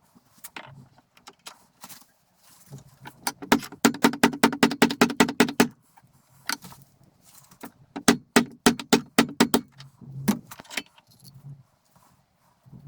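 Metal parts of a drill press clicking and rattling as it is taken apart by hand. Two quick runs of evenly spaced clicks, several a second, the longer one about four seconds in and a shorter one about eight seconds in, with scattered single knocks between them.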